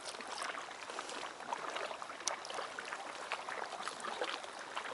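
Small waves lapping and sloshing against a concrete harbour wall and the blocks at its foot, with irregular small splashes.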